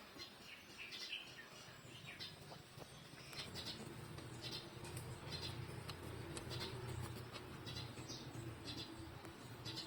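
Newborn puppies giving short, high-pitched squeaks about once a second as they nurse, over a low steady hum.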